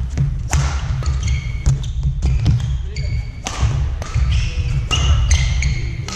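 Badminton rally on an indoor sports-hall court: sharp cracks of rackets striking the shuttlecock and short high squeaks of court shoes on the floor, over heavy low thudding from footwork on the court.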